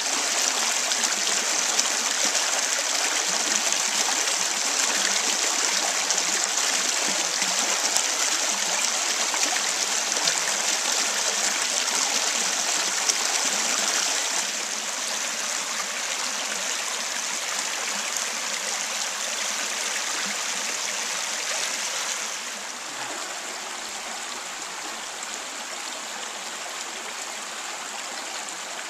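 Shallow creek water rushing and splashing over a low rock ledge and between flat stones, heard close up as a steady hiss. It steps down in loudness about halfway through and again about three-quarters of the way through.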